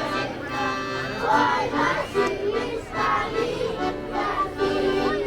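Live music with steady held notes, mixed with the voices of a crowd.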